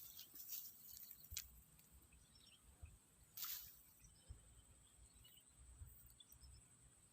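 Quiet swamp ambience: a faint steady high insect drone with scattered faint bird chirps, and a brief soft rustle about three and a half seconds in.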